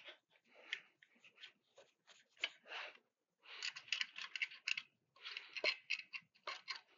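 Small metal clicks and scrapes as a screw is fumbled and worked into the mounting holes of a galvo laser head on its vertical column, coming in irregular clusters with two dense flurries in the second half.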